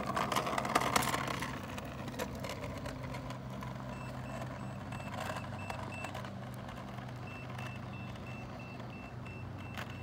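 Hoverboard-driven go-kart setting off, with a louder burst of rolling noise in the first second or so, then a fast run of short, high electronic warning beeps (about three or four a second) over a steady low hum. The beeping starts about four seconds in, stops for about a second, and then starts again.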